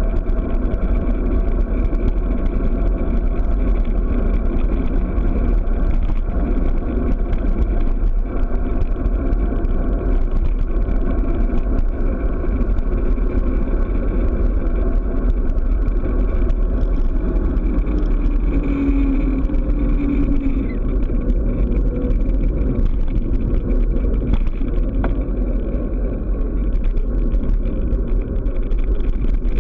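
Steady wind rumble on the microphone and tyre noise from a bicycle descending a paved road at speed.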